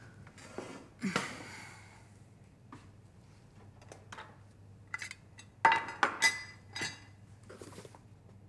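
Scattered knocks and clinks of tools, tins and jars being picked up and put down on a wooden workbench. The loudest is a run of sharp, ringing metallic clinks a little past the middle.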